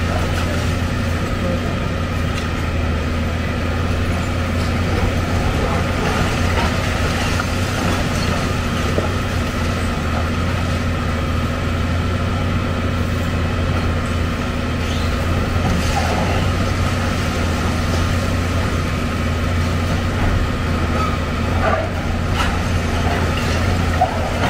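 Excavator's diesel engine running steadily at constant speed, with a couple of faint knocks near the end.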